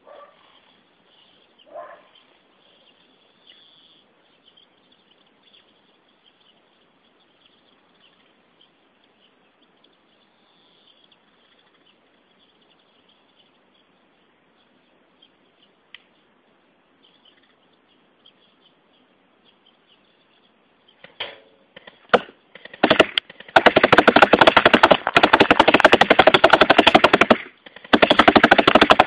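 Airsoft G36 rifle firing full-auto bursts, its BBs striking a wooden target board in a fast rattle of hits. There are two bursts near the end with a short break between them; before that there is only faint hiss and a few small knocks.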